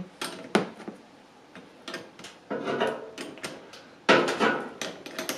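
Metal wrench clicking and clinking on an M8 nut in short, irregular bursts as the nut is tightened onto an electric kiln's heating-element terminal. The busiest clatter comes about four seconds in.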